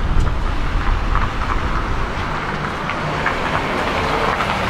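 Loud, steady low mechanical rumble, a little stronger in the first two seconds, with a few faint clicks over it.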